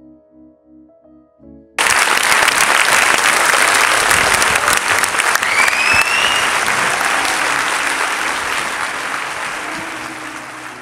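Soft keyboard music, then about two seconds in a large audience breaks into loud applause that starts abruptly. A short whistle rising in pitch cuts through the clapping a few seconds later, and the applause slowly dies down near the end.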